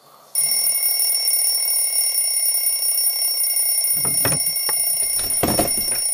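A steady high-pitched electronic ringing of several held tones that cuts in suddenly and does not pulse, with a few dull low knocks over it near the end.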